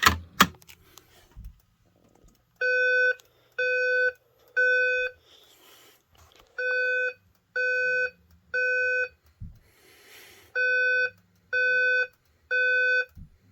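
A fire alarm pull station pulled with two sharp clicks, then a Simplex voice-evacuation speaker sounding a steady-pitched evacuation tone in the temporal-three pattern: three half-second beeps, a pause, repeated three times.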